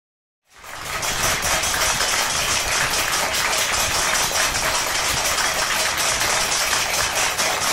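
Many people clapping their hands, mixed with steel plates being beaten. The dense rattle of claps and clangs starts suddenly about half a second in and goes on steadily.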